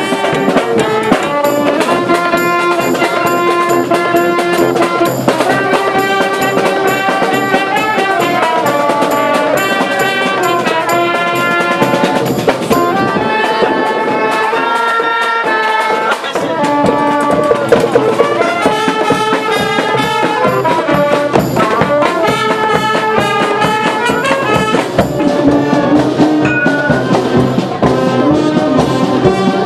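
Street brass band playing a lively tune: sousaphones, trombone, saxophones and clarinet over a bass drum and snare drum keeping a steady beat.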